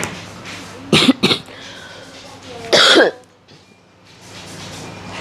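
A person coughing: two short coughs about a second in, then a longer, louder cough near three seconds, over a low steady hum.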